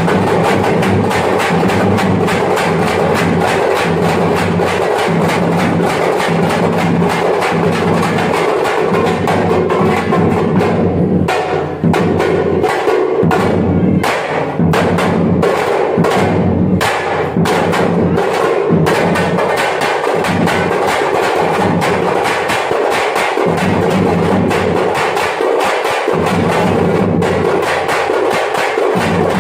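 Thappattam (parai) frame drums beaten with sticks in a fast, dense, loud rhythm. A little over a third of the way in, the beat thins to distinct single strokes for several seconds, then the full rhythm comes back.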